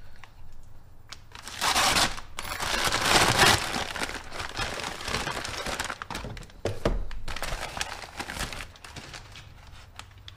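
A brown paper mailer being torn open and crumpled by hand, loudest about two seconds in, followed by lighter rustling as the packaging is handled.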